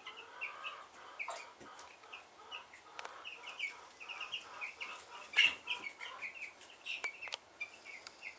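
A flock of about 38 eleven-day-old meat-bird chicks peeping, many short high chirps overlapping without a break. Scattered sharp clicks and taps come through the peeping, the loudest about five seconds in.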